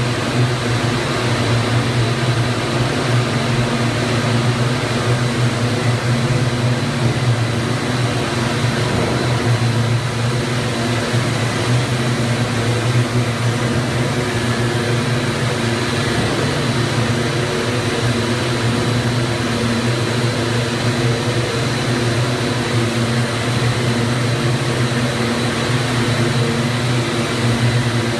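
Rows of DX268 two-for-one (TFO) twisting machines running, their spindles spinning yarn packages: a loud, steady machine drone with a strong low hum and a thin high whine.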